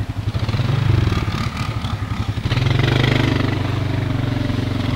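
Small ATV engine running with a steady pulsing beat, revved up about two and a half seconds in and held at higher speed.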